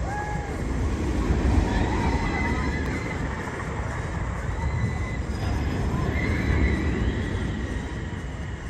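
A roller coaster train running on its track, with a low rumble that swells twice and high, wavering squeals over it.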